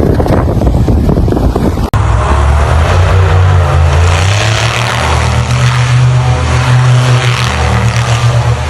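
Wind noise on the microphone. After a sudden cut about two seconds in, a motor vehicle's engine runs steadily and loud, its low note stepping up and down a little.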